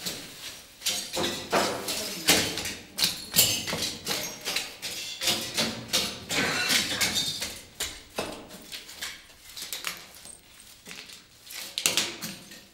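High-heeled sandals tapping in irregular footsteps on a hard floor strewn with loose magnetic tape, several sharp clicks a second with some rustling between them.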